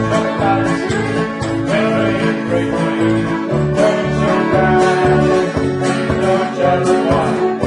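Country or bluegrass music with plucked guitar and banjo over a steady beat, and a singing voice.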